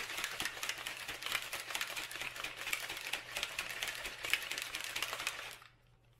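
A plastic shaker bottle of juice and dextrose being shaken hard by hand: a fast, dense rattling and sloshing that stops suddenly shortly before the end.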